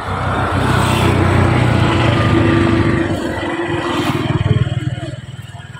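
A motor vehicle's engine running close by, growing louder over the first second and fading near the end.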